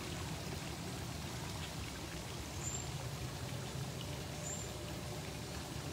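Steady rushing noise like running water, with a low rumble underneath and no distinct events.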